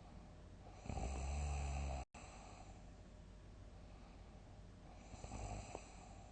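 A person snoring loudly in deep sleep: one long, loud snore about a second in that cuts off abruptly, then a shorter, softer snore near the end.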